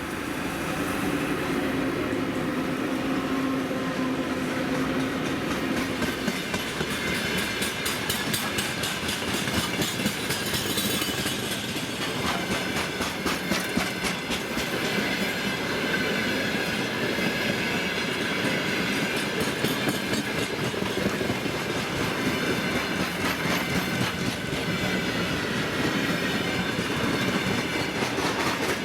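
Freight train behind a VL11M electric locomotive rolling past: a steady rumble with a low hum in the first few seconds, then wagon wheels clicking rapidly over the rail joints.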